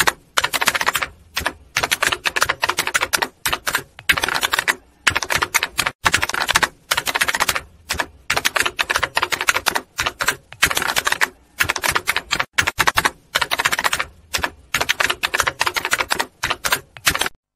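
Rapid typewriter key clatter in runs of clicks separated by short pauses, stopping abruptly near the end.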